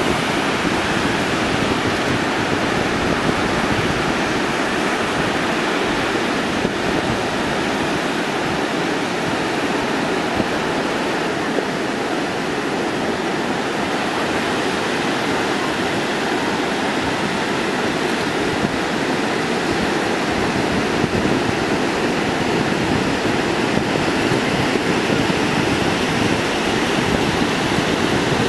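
Ocean surf breaking and washing ashore in a steady, even rush of noise.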